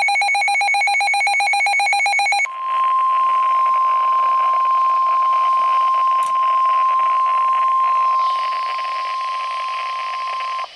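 NOAA Weather Radio emergency alert: the raspy, rapidly warbling SAME digital header tones end about two and a half seconds in, followed by the steady 1050 Hz weather radio warning alarm tone over radio static, which cuts off near the end.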